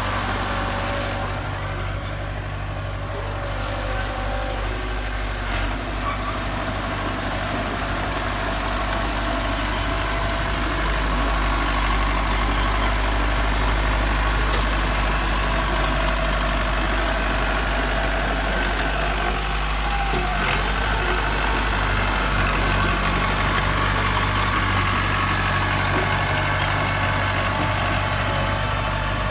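Heavy diesel engine of earthmoving equipment running steadily, a little louder from about ten seconds in.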